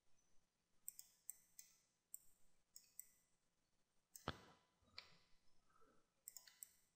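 Near silence with about eight faint, scattered clicks, the loudest about four seconds in, from a computer mouse and keyboard being worked.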